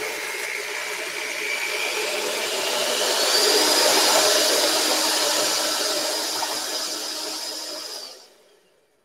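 Electric hand mixer running, its beaters beating cake batter in a glass bowl. The motor whine gets louder and higher about three seconds in, and the mixer switches off about eight seconds in.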